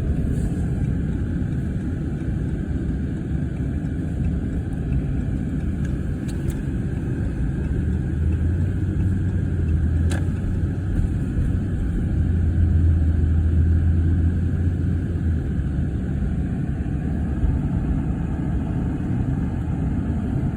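Car engine and road noise heard from inside the cabin while driving: a steady low rumble that swells a little between about 8 and 15 seconds in.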